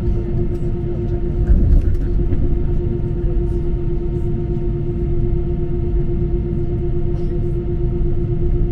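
Airliner cabin noise while taxiing: the jet engines give a steady drone with one constant tone over a low rumble from the rolling aircraft, swelling slightly about a second and a half in.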